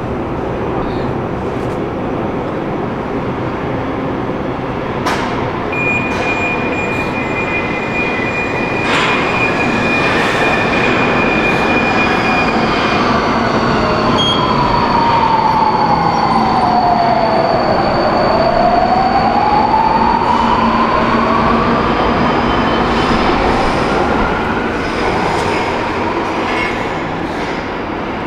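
Budapest M4 metro train, an Alstom Metropolis unit, pulling out of the station over a steady rumble. Its electric traction whine falls in pitch and then climbs again about two-thirds of the way through as the train speeds up, with steady high tones in the first half. It fades toward the end.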